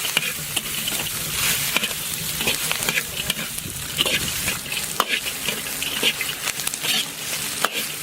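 Duck gizzards and chillies stir-frying in a hot pan: a continuous sizzle with frequent short scrapes and clicks of the stirring utensil against the pan.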